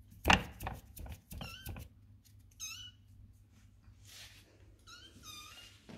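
Maine Coon kitten mewing several times, short high-pitched mews. A loud knock about a third of a second in is the loudest sound, followed by a few lighter clicks.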